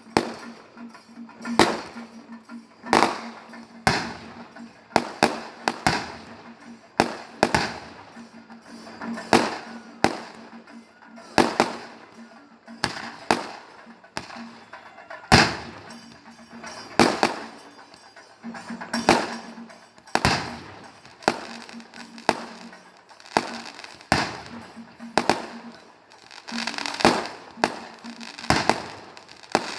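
Firecrackers bursting one after another: a long series of sharp bangs, about one to two a second, some in quick clusters, each with a short echo. A steady low tone runs underneath much of the time.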